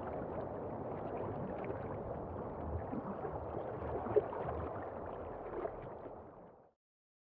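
Rushing, bubbling water sound with one brief sharp pop about four seconds in, fading out to silence about six and a half seconds in.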